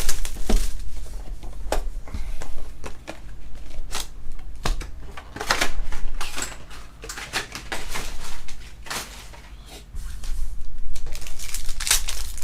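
A trading-card box and its wrappers being handled and opened by hand: irregular crinkling, rustling and tapping of cardboard and packaging. It eases off for a couple of seconds before resuming near the end.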